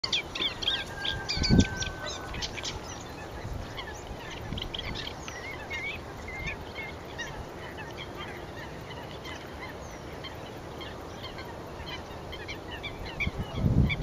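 A flock of water birds calling, with many short, high calls overlapping throughout. Two low thumps stand out, about a second and a half in and again near the end.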